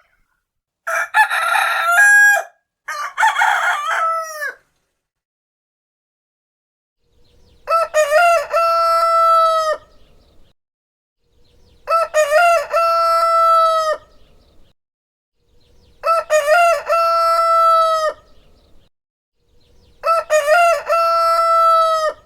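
Rooster crowing six times: two rougher crows back to back in the first few seconds, then four identical long cock-a-doodle-doo crows repeating about every four seconds, each ending in a falling note.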